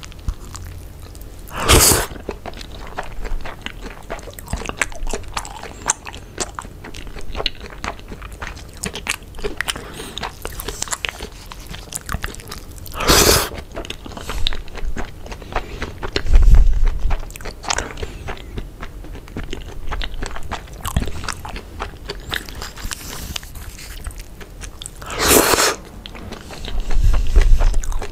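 Close-miked chewing of rice mixed with egg, with many small wet mouth clicks throughout. Three brief, louder rushes of noise come near the start, about halfway and near the end, and a couple of dull low bumps fall in the second half.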